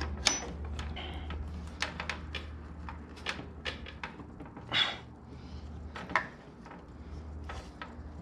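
Irregular clicks and knocks of a hand tool working an oil filter loose on a motorcycle engine, over a steady low hum.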